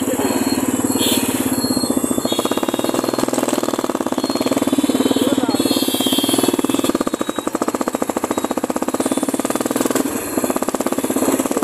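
Royal Enfield 350's single-cylinder engine running with a fast, even exhaust beat while the motorcycle is ridden through city traffic.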